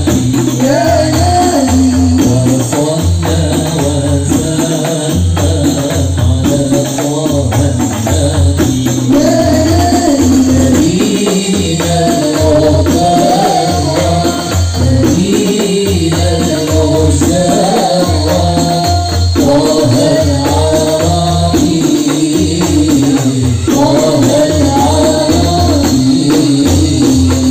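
Banjari music: a group of frame drums and barrel hand drums playing a steady interlocking rhythm, with a vocalist singing a devotional melody over them through a microphone.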